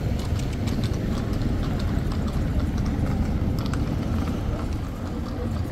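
Horse hooves clopping in a quick, irregular run of clicks over a steady low rumble of street traffic.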